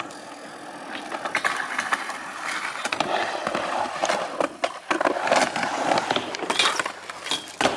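Skateboard rolling through a panelled ramp, its wheels making a steady rolling noise broken by many sharp clacks.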